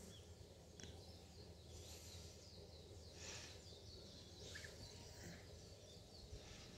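Near silence: faint outdoor ambience with scattered faint bird chirps and a brief soft rustle about three seconds in.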